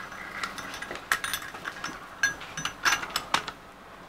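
Steel hook and carabiner of a handheld digital luggage scale clicking and clinking against a forged 65G steel axe head as the axe is hung and lifted to be weighed: an irregular run of light metallic clicks, some with a short ring.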